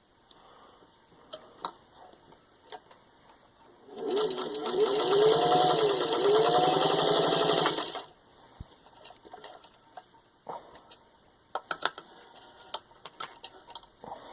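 Singer 15-91 sewing machine with its built-in motor, stitching through four layers of soft leather in one run of about four seconds, starting about four seconds in. The motor whine rises and falls in pitch as the speed changes. Light clicks and taps come before and after the run.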